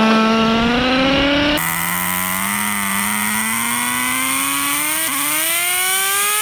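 Small glow-fuel nitro engine of a radio-controlled truck running at high revs, its pitch climbing steadily. About a second and a half in, the sound cuts to another run of the engine, whose pitch again rises slowly for several seconds.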